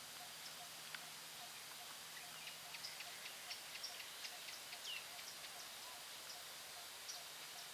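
Birds chirping faintly in short, scattered calls over a steady hiss, with a soft low note that pulses evenly nearly three times a second.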